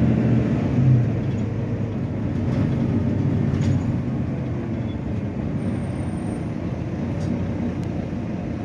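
Volvo B9TL double-decker bus's diesel engine running with a steady low drone, then fading after about a second as the bus draws away, leaving general traffic noise.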